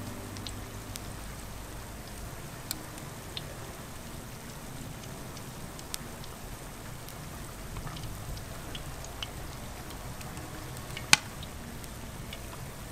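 Battered pieces of pork belly deep-frying in oil in a kazan at a moderate boil: a steady bubbling sizzle with scattered small pops, one sharper pop about eleven seconds in.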